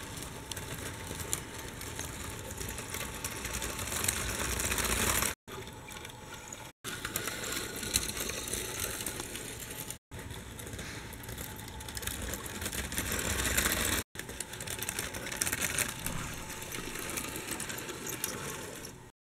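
Siku die-cast model trains running along metal model railway track, their wheels rattling and clicking over the rails in a steady clatter. The sound cuts out briefly four times.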